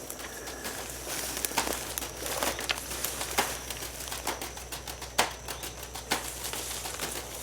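Rustling and crackling of dry vegetation with irregular sharp snaps, like footsteps pushing through brush and grass.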